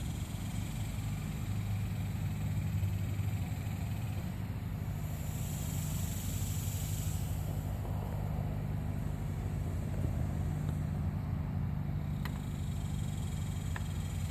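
Steady low mechanical hum with a rumble beneath it, with two faint ticks near the end.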